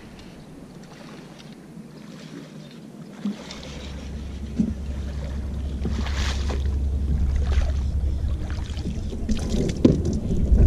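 A hooked largemouth bass splashing at the surface beside a jon boat as it is fought in, with a splash about six seconds in and more splashing near the end as it is swung out of the water. A steady low wind rumble on the microphone builds from a few seconds in and is the loudest sound.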